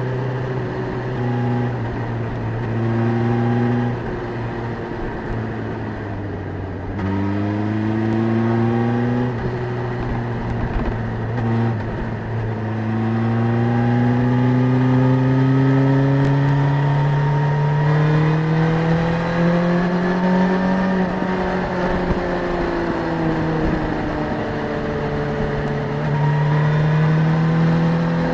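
Suzuki GSX-S1000's inline-four engine on the move, revs climbing and dropping as the bike accelerates, shifts up and rolls off. There is one long rise in revs through the middle, a fall, and another climb near the end.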